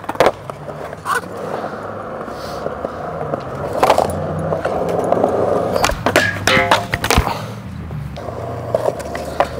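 Skateboard wheels rolling on smooth concrete, a steady rumble, broken by several sharp clacks of the board, the strongest about four seconds in and a cluster around six to seven seconds.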